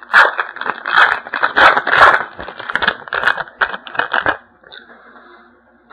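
A trading card pack's wrapper being torn open and crinkled by hand, a run of sharp crackling rustles that stops about four and a half seconds in.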